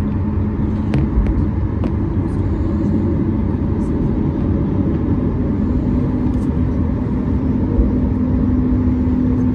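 Cabin noise of a Boeing 737 MAX 9 taxiing: a steady low rumble from the rolling airliner and its CFM LEAP-1B engines at taxi power, with an engine hum that rises slightly in pitch about halfway through. A couple of light knocks come about a second in.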